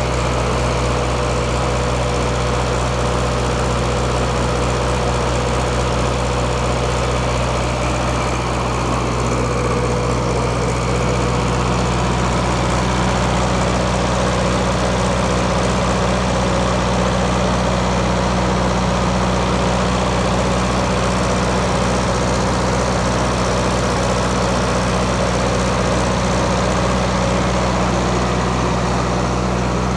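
Perkins four-cylinder diesel engine of an FG Wilson 40 kW generator set running steadily at constant speed.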